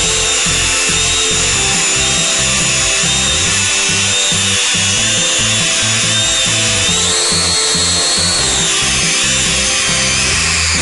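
Small toy quadcopter's motors whining at high pitch as it flies, the pitch climbing as the throttle opens, rising higher about seven seconds in and dropping back a second and a half later. Music plays underneath.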